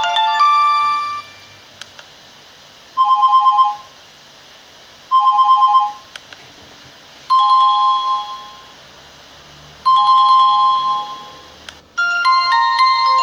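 Alcatel Big Easy A382g phone playing ringtones through its small speaker. A short electronic melody ends about a second in. After a pause come two quick warbling two-tone trills, then two two-note chimes that ring out and fade. A new melody starts near the end.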